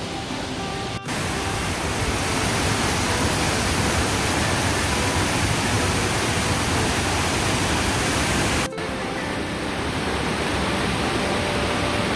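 Waterfall in a forest, the water rushing steadily as a dense, even hiss. The sound breaks off for an instant about a second in and again a few seconds before the end, coming back slightly duller the second time.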